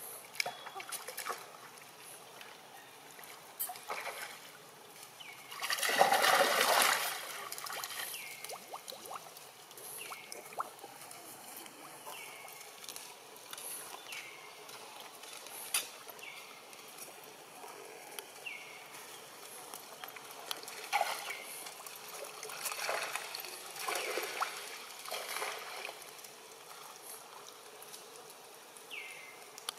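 Water sloshing and splashing as macaques move in shallow water, with one loud splash about six seconds in.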